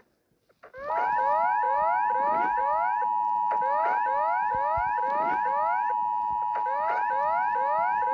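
Electronic emergency alert alarm: a steady two-note tone under a fast, repeating rising siren sweep, starting about a second in.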